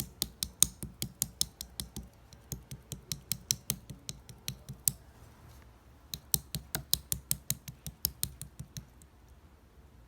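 Rapid sharp clicks, about four to five a second, in two runs with a pause of about a second in the middle; the clicking stops about a second before the end.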